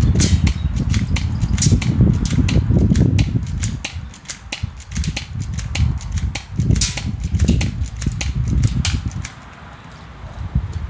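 Airsoft gun firing a long string of rapid shots, sharp clicks several a second over a low rumble. It pauses briefly near the end.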